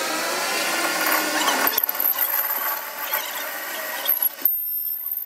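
Metal lathe cutting the weld on a rear axle hub flange: the tool scrapes against the spinning steel with a wavering squeal. About two seconds in the squeal gives way to a rougher, steadier cutting noise.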